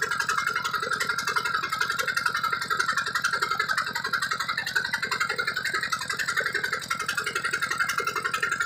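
Small stationary diesel engine running steadily with a fast, even beat, driving an irrigation water pump by a V-belt, with a steady high whine over it.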